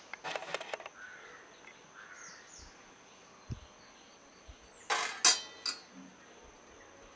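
Stainless steel kitchen items clinking against each other and the dishwasher rack as they are handled, in two short clusters: one just after the start and a louder one around five seconds in.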